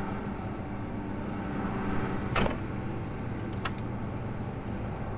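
John Deere T670i combine harvester running, heard from the cab as a steady low drone. There is a sharp click about two seconds in and two lighter ticks a little later.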